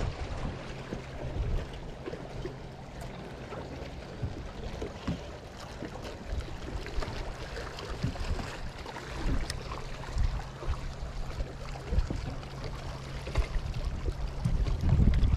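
Small waves lapping against a small boat's hull, with a steady low hum underneath that fades out near the end and scattered light knocks.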